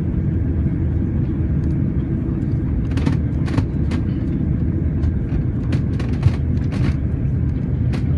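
Steady low rumble of engine and airflow noise inside a jet airliner's cabin during its descent to land, with a few faint clicks around the middle.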